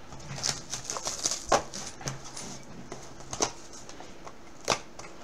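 Cardboard trading-card box being opened and handled: scattered short taps, scrapes and rustles of cardboard and packing, sharpest about a second and a half in and again near the end.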